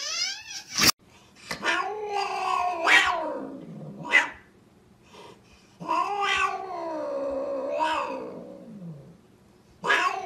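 Domestic cat caterwauling: three long, wavering, drawn-out yowls, each sagging in pitch at its end, with a short higher cry between the first two.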